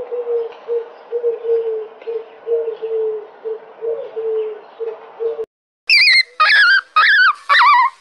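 Common wood pigeon cooing: a low, soft coo repeated in short phrases. After a brief break about five and a half seconds in, a dog starts whining in high, wavering cries that repeat several times a second.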